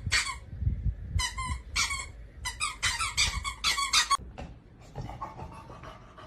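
Short high-pitched squeaks in quick runs, about a dozen in all, stopping about four seconds in, amid dog sounds.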